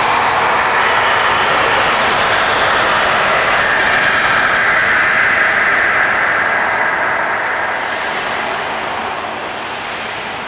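Designed eerie wind sound effect: a loud, steady hollow rush of wind, its pitch drifting up a little mid-way, then slowly fading out over the last few seconds.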